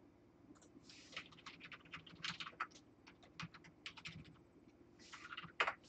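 Faint computer keyboard typing: quick runs of keystrokes, a short pause, then a few more keys and one sharper click near the end.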